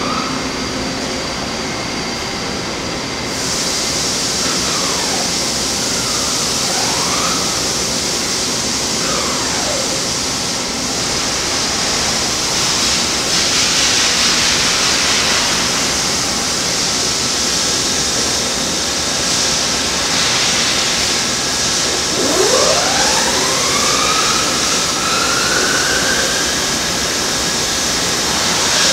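Toshiba BTD-11R16 CNC boring mill running under its pendant controls: a steady loud hiss and hum that gets brighter about three seconds in. Motor whines glide up and down in pitch several times, with a long rising whine near the end.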